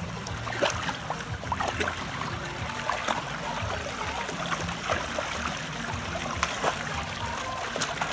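English bulldog splashing as it wades through shallow pool water and snaps at it, with sharp splashes scattered over a steady trickle of running water.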